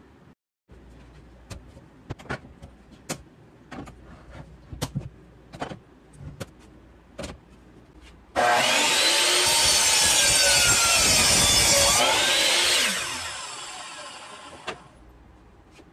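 Light knocks of a laminate-flooring block being handled and set on a mitre saw, then the saw's motor starts abruptly, runs loud for about four seconds and winds down over about two seconds.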